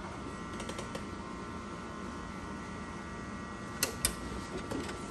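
HP DesignJet T120 large-format inkjet printer running its checking cycle after a new printhead is fitted: a steady mechanical hum with a whine, and two sharp clicks close together about four seconds in.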